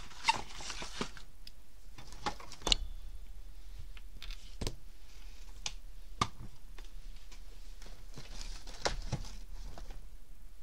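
Rummaging through craft supplies in search of a roll of double-sided tape: scattered light clicks and knocks of small objects being moved, with bursts of paper or plastic rustling near the start and again near the end.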